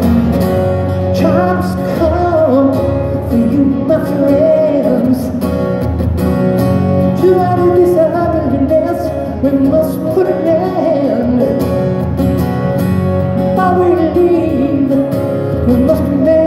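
Live rock band music between sung lines, with a strummed acoustic guitar under a wavering lead melody.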